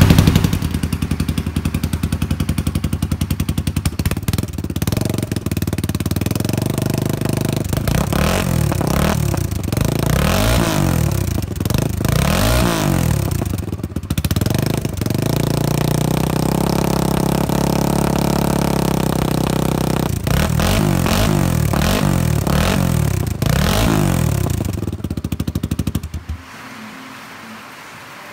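Honda 300EX ATV's single-cylinder four-stroke engine running just after its first start following a top-end rebuild, blipped up and back down in several revs with a steady idle between them. The sound drops away near the end.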